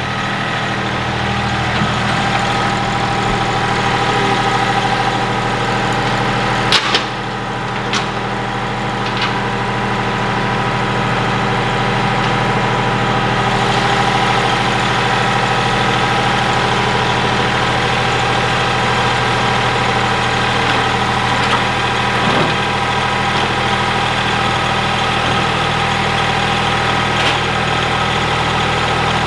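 Ford 1710 compact tractor's three-cylinder diesel engine running steadily. Two sharp clicks or knocks come about seven and eight seconds in.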